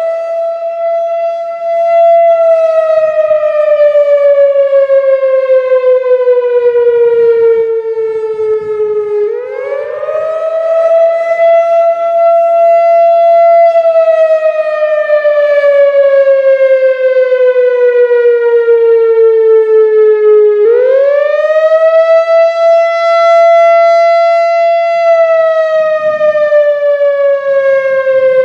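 Whelen WPS-4004 electronic outdoor warning siren sounding its wail on a one-minute test: a loud tone that climbs quickly, holds high for about two seconds, then slides slowly down, repeating about every eleven seconds.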